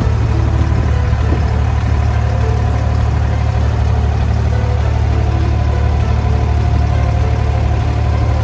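Abra water taxi's diesel engine running with a steady low drone as the wooden boat crosses the creek.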